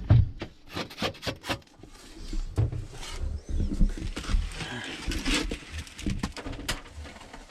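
Clunks, scrapes and rustling as an air filter is worked out of the air handler's filter slot.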